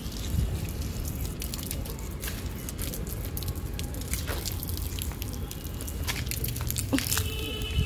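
Water from a garden hose splashing onto potted plants, over a steady low rumble.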